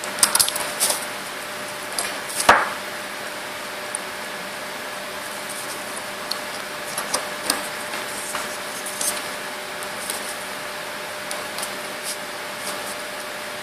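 Scattered clicks and taps of an orthodontic spring block appliance and its dental model being handled and flexed by hand, over a steady background hiss. The taps cluster in the first second, the loudest comes about two and a half seconds in, and lighter ones follow now and then.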